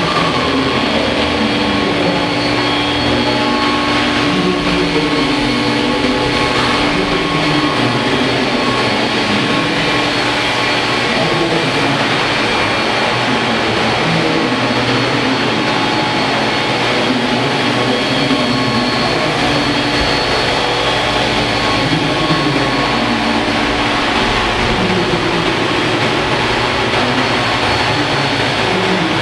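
Turbine-powered 1:5 scale Vario-Helicopter Bell 430 model helicopter lifting off and flying: a steady, high turbine whine over the rotor's noise, with lower tones that waver up and down.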